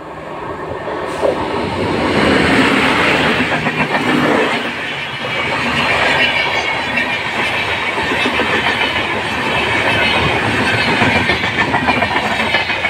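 Express train passing at speed behind a WAP-7 electric locomotive. The sound builds over the first two seconds as the locomotive arrives, then holds loud as the coaches' wheels clatter steadily over the rails.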